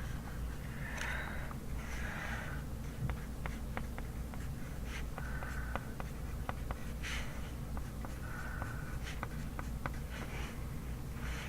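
Handwriting on paper: short scratchy strokes with light ticks as the writing tip meets the page, over a steady low hum.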